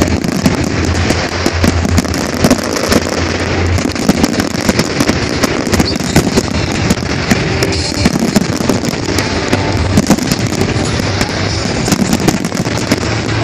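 A dense fireworks barrage: many aerial shells bursting in rapid, overlapping bangs and crackles, with no let-up.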